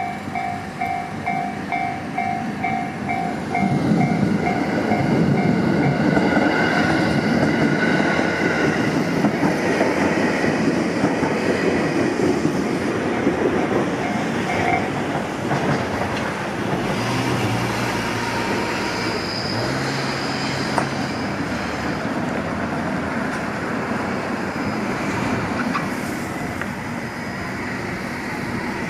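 A level-crossing warning bell rings rapidly and evenly as a JR Tokaido Line train passes through the crossing, its wheels rumbling and clattering over the rails. The train comes in loudly about 4 seconds in. The bell stops about halfway through while the train noise carries on and slowly fades.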